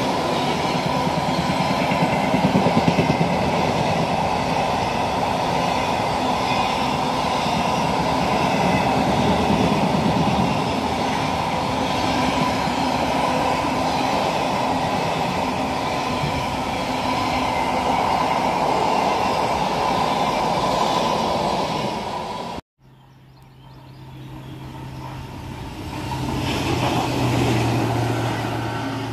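Intermodal container freight train running past, its wagons giving a steady rumble and rattle of wheels on rail. It cuts off suddenly about three-quarters of the way in. A Colas Rail on-track machine then approaches, its diesel engine hum growing louder toward the end.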